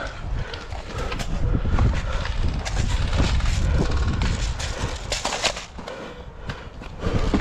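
Wind and handling noise rumbling on a body-worn camera's microphone, with scattered clicks and rustling. The noise drops briefly about six seconds in.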